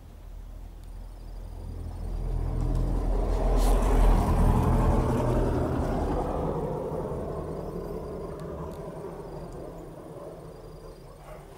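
A motor vehicle's engine running as it passes by, growing louder to a peak about four seconds in and then fading away over the following several seconds.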